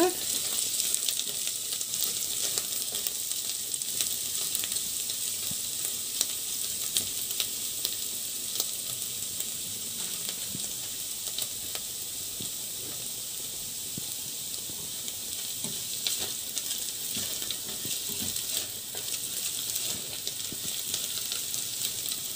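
Chopped onions frying in hot fat in a stainless steel pot, a steady sizzle with faint scattered crackles, as they are lightly browned.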